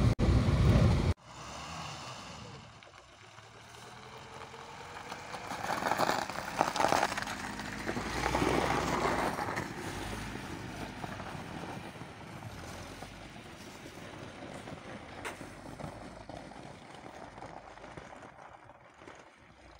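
Lada VAZ-2104's four-cylinder engine revving as the car drives through snow, heard from beside the track: it swells to its loudest about six to nine seconds in, then fades as the car pulls away. The first second is loud noise inside the car that cuts off abruptly.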